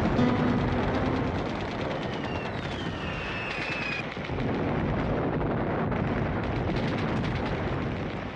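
Wartime battle sound: explosions and gunfire, with a falling whistle about three seconds in and dense, rapid gunfire through the second half.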